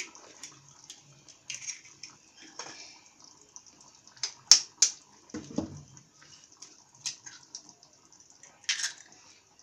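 Eggs cracked into a pan of simmering curry gravy: short sharp cracks of the eggshells, the loudest a quick pair about halfway through followed by a dull knock, over light bubbling of the gravy.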